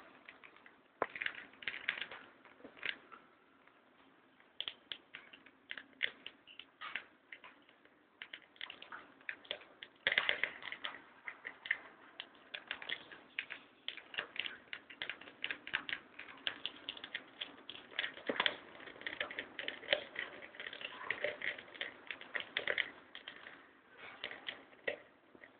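Rapid, irregular clicking and crunching of a lovebird's beak shredding nesting material, busiest in the second half.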